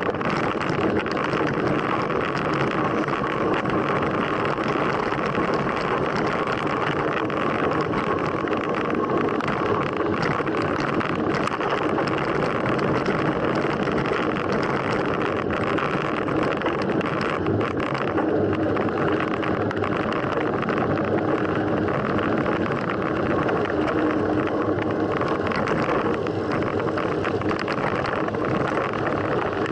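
Steady rush of wind on the microphone and tyre noise from a mountain bike being ridden, with a few light clicks and rattles.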